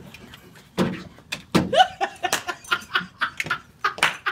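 Laughter and chuckling in short, irregular bursts, mixed with bits of voice.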